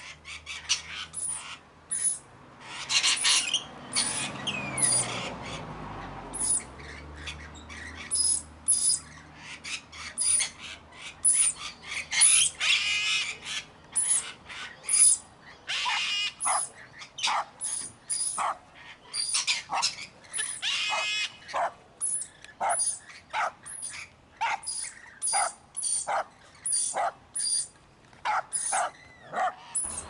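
Parrots calling: many short, sharp squawks in quick succession, broken by a few longer harsh screeches, with the short calls coming about twice a second near the end.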